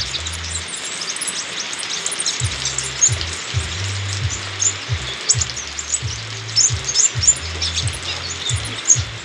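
A sepah raja sunbird chirping in quick, high notes, many short calls in irregular runs, over background music with a low, repeating bass line.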